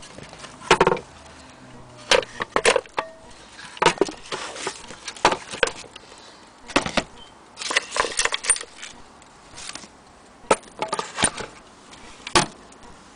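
Irregular clicks, knocks and light rattles of an antique pigeon-racing clock's wooden case and brass fittings being handled and moved about, coming in short clusters every second or so.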